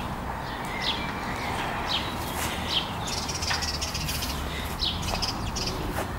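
Garden birdsong: a small bird repeating a short, falling chirp about once a second, with a run of higher twitters in the middle, over a steady low rumble.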